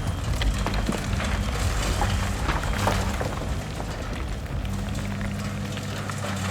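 An engine running steadily with a low rumble, and scattered clicks and knocks over it.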